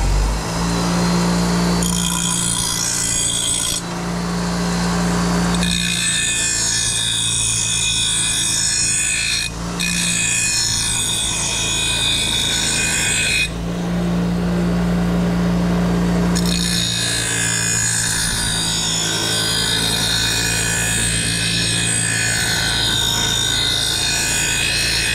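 Bench grinder running with a steady motor hum while a steel lawnmower blade is held freehand against its wheel. The blade grinds in several passes, with pauses of a second or two where only the motor is heard. It is taking a lot of metal off blades that were very dull.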